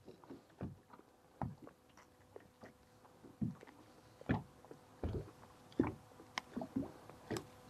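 Scattered small clicks, taps and soft knocks of a crappie being handled and unhooked by hand, the jig and line rattling against the fish, under a faint steady hum.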